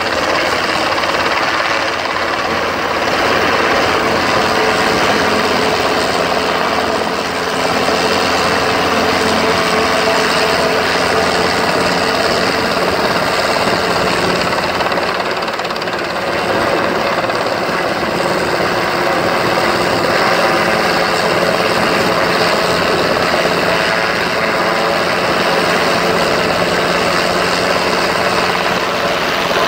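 Small Robinson piston helicopter hovering, its engine and main rotor running steadily.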